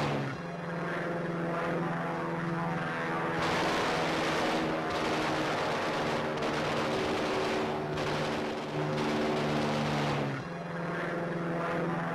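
Propeller aircraft engine drone, a steady many-toned hum that shifts abruptly to a new pitch and level several times.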